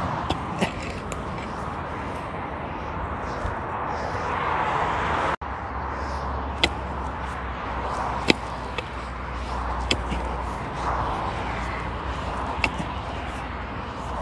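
Pickaxe blows biting into hard, stony soil: sharp single strikes every second or two, irregularly spaced. Steady road-traffic noise runs underneath.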